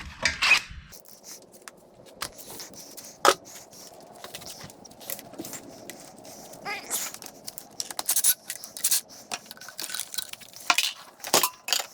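Hand tools clinking and scraping against metal engine parts, a string of irregular sharp metallic clicks, loudest in a cluster near the end.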